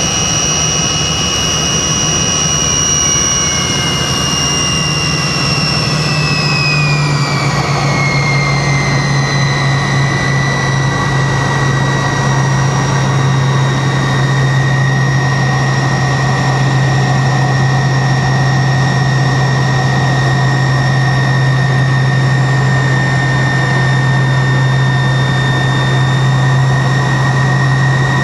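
Tupolev Tu-134's rear-mounted Soloviev D-30 turbofans heard from inside the cabin: a steady jet rumble with a high whine. About five seconds in, the whine slides down in pitch and settles lower as the engines spool down with thrust reduced, while the low hum grows stronger.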